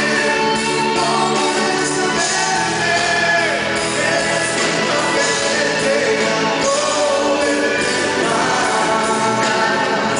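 Live band music with singing, long held and gliding vocal notes over steady accompaniment.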